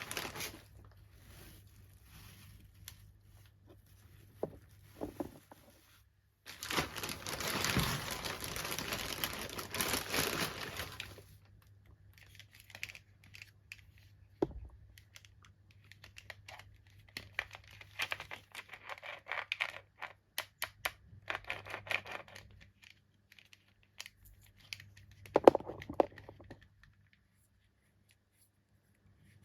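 Doll packaging being unboxed by hand: a long loud tear about six seconds in, then scattered crinkling and clicking, with a sharper snap near the end.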